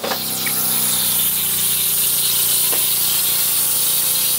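Boat's electric freshwater pump running with a steady hum, while pressurised water hisses and sprays out of the leaking inline water filter housing.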